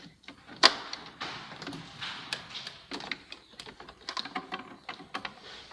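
Hard plastic clicks and rattles as diesel fuel lines and their push-on connectors are handled and pressed into place. One sharp click about two-thirds of a second in is the loudest, followed by many smaller irregular clicks.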